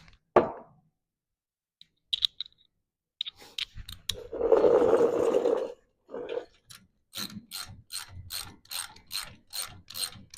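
9/16 ratchet wrench tightening the nut on a friction shock, clicking in steady strokes about three a second in the second half, after a few clinks of the tool on the nut and a louder rasping stretch about four seconds in.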